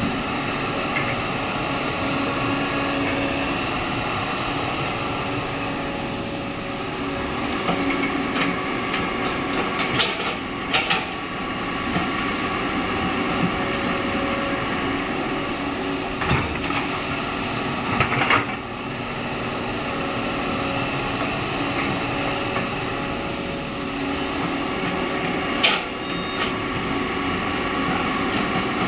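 Hitachi hydraulic crawler excavator's diesel engine running steadily under load while it digs soil and swings to load a dump truck, with a few sharp metallic clanks from the bucket and boom.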